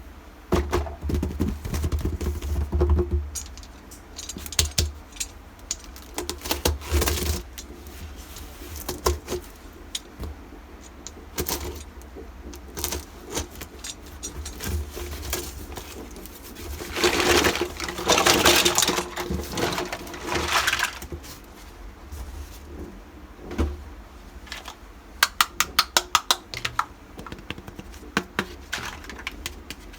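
Small pieces of a miniature toy kitchen set being handled and unpacked: scattered clicks and clinks of little parts set down and knocked together, a few seconds of rustling a bit past halfway, and a quick run of light taps near the end.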